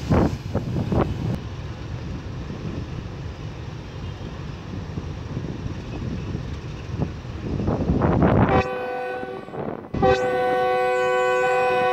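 Diesel-electric locomotive's multi-tone horn near the end: a short blast, a brief break, then a long held blast, as the train departs. Before it, a steady noisy rumble.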